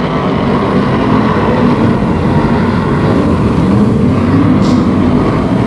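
A pack of V8-engined BriSCA F1 stock cars racing together, their engines running hard in a continuous loud din with revs that rise and fall.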